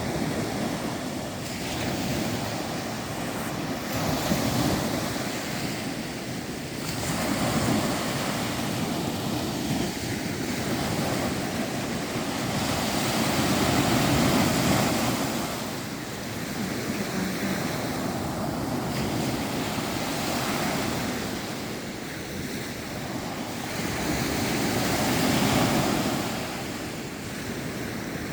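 Baltic Sea waves washing in, the surf swelling and easing every few seconds.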